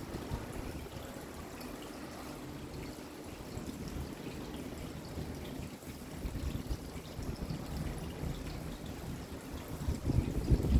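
Rain falling steadily, with a low rumble that swells louder near the end.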